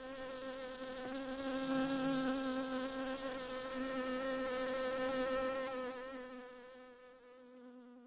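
A bee buzzing: one steady, slightly wavering hum that fades away over the last two seconds.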